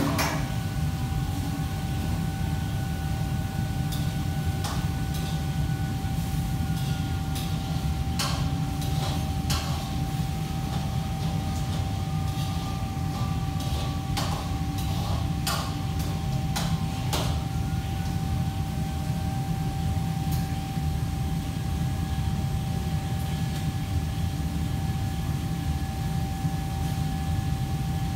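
Steady low rumble and hum of running kitchen equipment, with a constant mid-pitched whine. Light clinks and knocks of utensils at a counter come and go through the middle.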